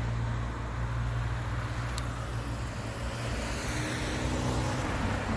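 Road traffic on a city street: cars driving past, over a steady low engine hum.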